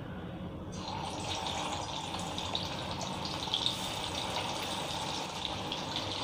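Masala-marinated fish frying in hot oil: a steady sizzle that swells about a second in and then holds even, with a light crackle.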